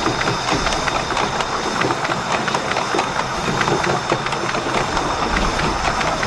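Miniature railway train running past on 7¼-inch gauge track: a steady rattling hiss of wheels on rail, with many sharp, irregular clicks.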